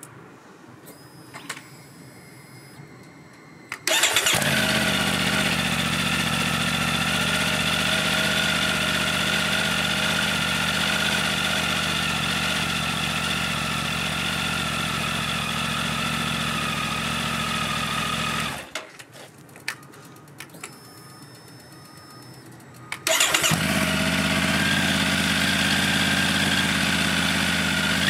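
Triumph Tiger 900's three-cylinder engine on its stock exhaust, cold-started about four seconds in and idling steadily. It is shut off after about fifteen seconds, then started again about four seconds later and idles on.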